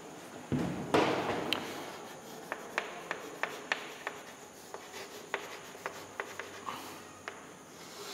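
Chalk writing on a chalkboard: a low thump and a scrape in the first second, then a string of short, sharp chalk taps and scratches as the letters are written.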